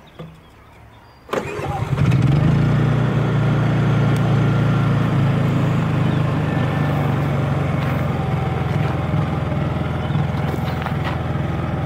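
Honda EU3000is inverter generator running, a steady even engine hum that comes in suddenly about a second in after a quieter moment.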